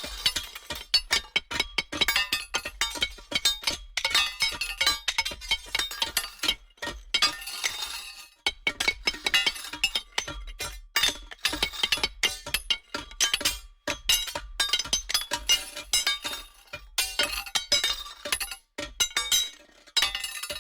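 Many small hard objects clinking and rattling rapidly, with bright glassy ringing. There are brief pauses about 8, 14 and 19 seconds in.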